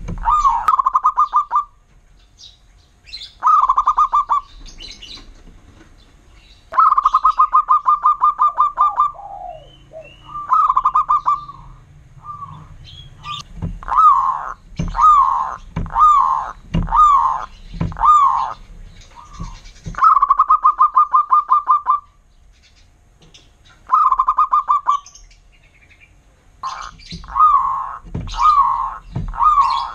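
Zebra dove (perkutut) cooing: bursts of rapid, evenly pulsed trills lasting a second or two, alternating with runs of single downward-sliding coo notes at about one a second.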